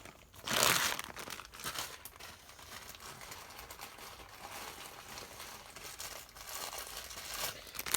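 Plastic bead bags crinkling as they are handled, with a louder rustle about half a second in, then quieter rustling with small clicks.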